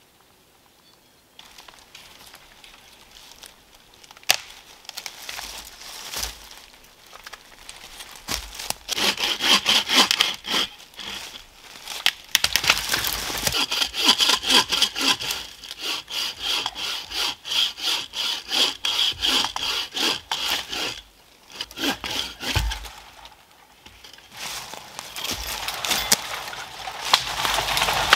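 Bucksaw cutting through a dead log in rhythmic back-and-forth strokes, about two a second, starting about eight seconds in and broken by a couple of short pauses. Before the sawing there are footsteps rustling through dry leaves and one sharp knock.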